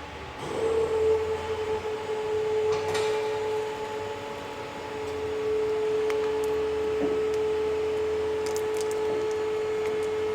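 A motor running with a steady whine that starts about half a second in and holds one pitch, over a low hum, with a few light knocks.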